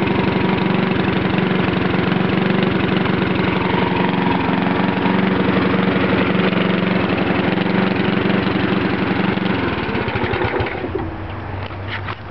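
Small lawnmower engine running very loud through a straight paintball-gun-barrel exhaust, a steady rapid firing note, then winding down and fading near the end.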